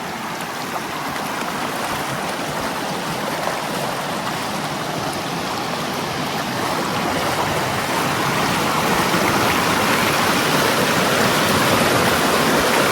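Rushing water of a rain-swollen creek pouring through road culverts, a steady loud rush that grows gradually louder.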